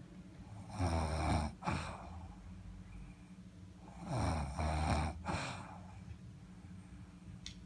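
A sleeping person snoring: two loud snores about three seconds apart, each a long rattling snore followed by a shorter one.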